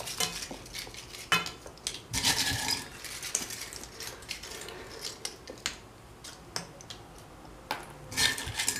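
Light clinks and clicks of a small pot and a metal pan being handled, with short rustles, as a gloved hand picks out pieces of fried bread and lays them on a dish of yogurt-covered chickpeas. A longer rustle comes about two seconds in and again near the end.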